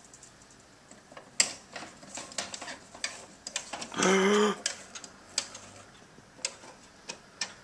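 Venetian blind slats clicking and rattling irregularly as the blind is tilted open by hand, with one short loud buzz about four seconds in.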